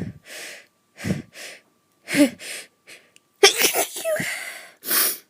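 A woman's high-pitched sneezes in a quick run, with sharp breaths drawn in between; the loudest, with a long hissing tail, comes about three and a half seconds in.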